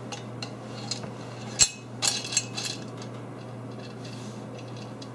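Light metallic clinks of a steel nut and screwdriver against a steel caster bracket as the nut is worked onto a bolt: a few scattered ticks and one sharper clink about a second and a half in, over a steady low hum.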